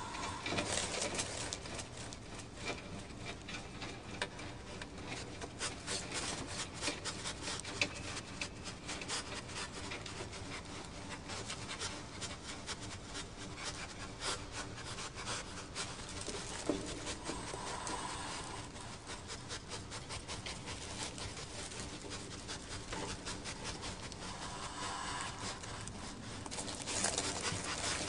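Raccoons scratching and rummaging: a continuous scratchy rustling made of many rapid clicks.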